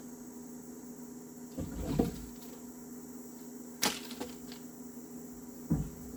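Pieces of firewood knocking and thudding as they are dropped onto a pile: a dull thud about two seconds in, a sharp wooden crack near the middle and another thud near the end, over a steady hum.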